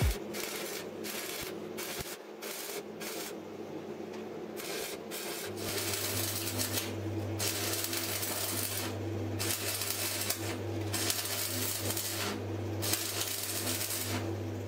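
Electric welding arc crackling and sputtering in runs with short breaks as steel is welded, with a steady low hum setting in about five seconds in.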